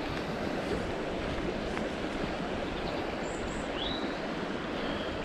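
Steady rush of a fast-flowing river, an even wash of moving water.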